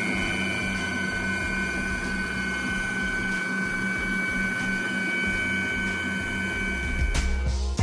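Dodawa 500 W stand mixer running with its wire whisk beating eggs in the stainless bowl: a steady motor whine over a low rumble. Near the end there is a click and the motor stops.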